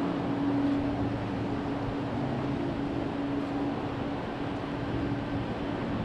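Boeing 777 airliner's jet engines running at ground idle: a steady whooshing hum with a held low tone.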